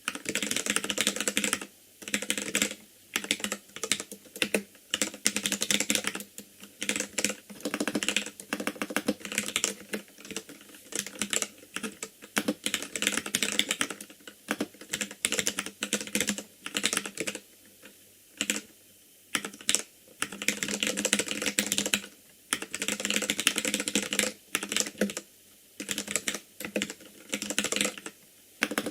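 Typing on an ikbc Poker II mechanical keyboard with Gateron Red linear switches: fast runs of keystrokes clacking, broken by short pauses every few seconds.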